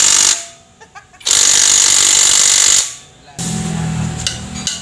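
Impact wrench running in two loud bursts, about a second and then about a second and a half, as the exhaust is bolted on. A low steady hum follows near the end.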